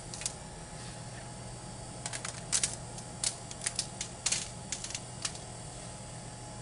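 Irregular light ticks and taps as pinches of chopped garlic are dropped onto squash halves and the aluminium foil lining the baking sheet. They come in small clusters from about two seconds in.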